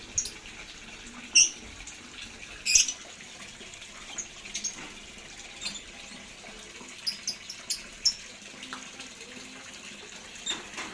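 Lovebirds giving short, sharp chirps at irregular intervals, two louder ones in the first three seconds and fainter ones after, over a steady hiss.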